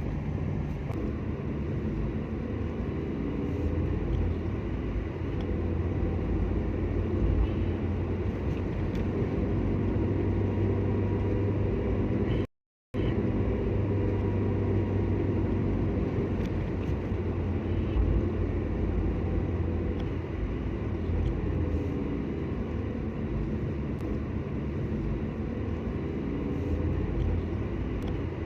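Steady road and engine rumble of a moving car heard from inside the cabin. The sound drops out completely for about half a second roughly halfway through, then carries on.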